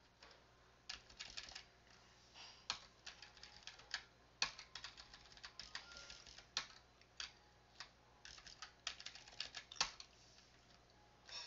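Typing on a computer keyboard: irregular clusters of sharp key clicks with short pauses between.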